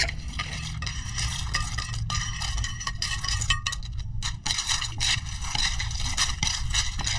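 A large spoon scraping and stirring through shell-on cockles and salad in a clay mortar, with many small irregular clinks and clatters of shell against shell and against the mortar as the cockles are pushed off a plate into it and mixed.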